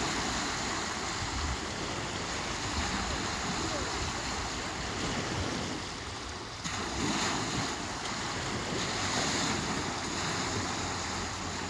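Small lake waves breaking and washing up a sandy beach. The wash eases briefly a little past halfway, then the next wave breaks in.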